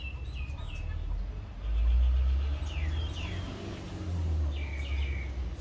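Outdoor background: a low rumble that swells about two seconds in and again near the end, with short falling bird chirps repeating over it.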